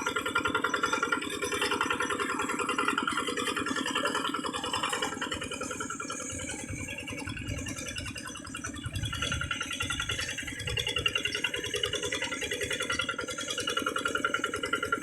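Single-cylinder Kubota RD85 DI diesel engine of a hand tractor running steadily with a rattle, easing off a little about halfway through and then picking back up.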